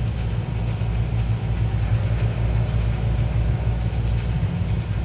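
A deep, steady low drone from the performance's electronic sound design, even throughout with nothing sharp over it.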